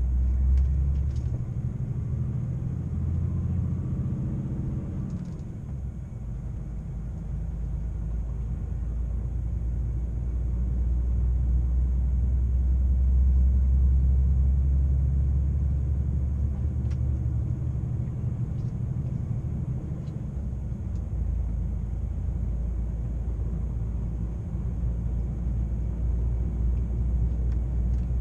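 DAF XF106 truck engine and road noise heard from inside the cab while driving: a steady low drone, its note shifting in the first few seconds before settling.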